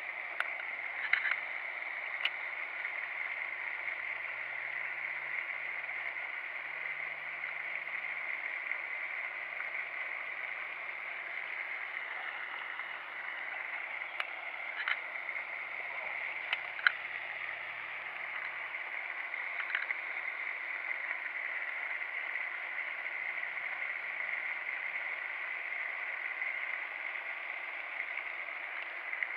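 Steady splashing hiss of a pond's aerating fountain spray, with a few sharp clicks scattered through it.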